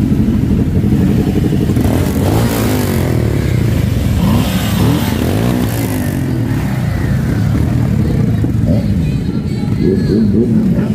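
Several motorcycle engines running together, idling with revs that rise and fall a few times.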